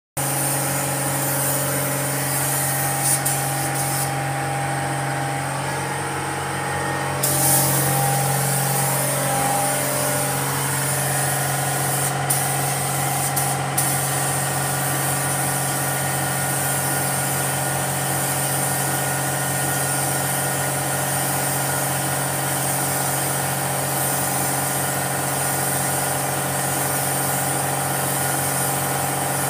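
Compressed-air paint spray gun hissing steadily as it sprays car paint, over a steady machine hum. The hiss stops about four seconds in and starts again about seven seconds in.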